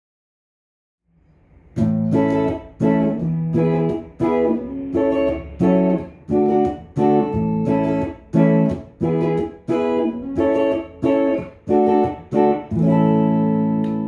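PRS SE Custom 24 electric guitar on its neck humbucker, played clean through a Fender Blues Deluxe Reissue tube amp. After about a second of silence, chords are picked in a steady rhythm of about two a second, ending on a held, ringing chord.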